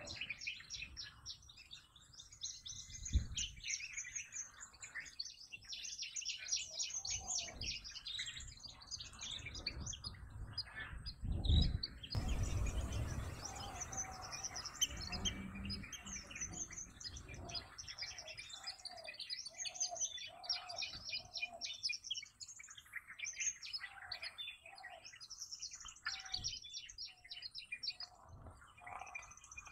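Wild birds chirping and twittering continuously, with a lower call repeated many times in the middle stretch. Two dull low thumps come about 3 seconds in and just before the midpoint.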